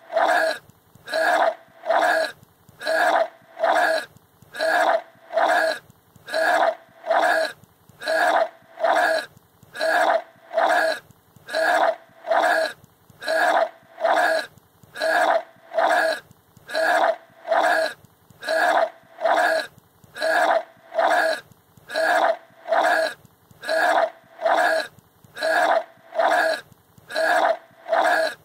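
A boy's retching, barfing vocal sound repeated over and over at an even pace, a little over one a second, each one alike.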